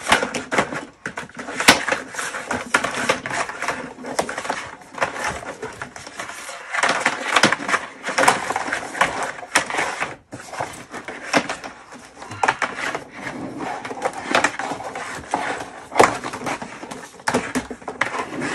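A flexible drain-cleaning shaft being handled and worked into the plastic drum of a Ridgid K9-204 machine: irregular scraping, rubbing and clattering, with a few sharper knocks.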